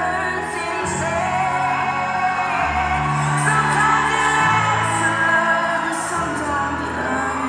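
Pop music with singing, filling a large arena, over a steady bass line whose notes change every second or two.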